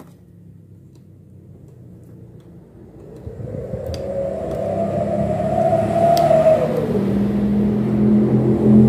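A mechanical hum with a whir, growing louder from about three seconds in. The whir swells and fades again around the middle.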